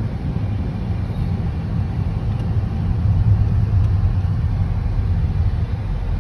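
Low, steady rumble of a Nissan being driven slowly, engine and road noise heard from inside the cabin, growing a little louder about halfway through.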